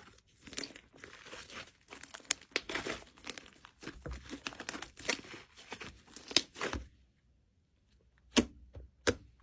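Fluffy pink slime squished, kneaded and stretched by hand: a dense run of sticky crackles and small pops that stops about seven seconds in, then two louder, sharp pops near the end.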